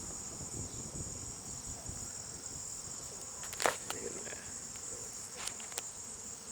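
Honeybees buzzing in numbers around an opened, stirred-up hive, over a steady high-pitched insect drone. A few sharp clicks, one about halfway through and two near the end.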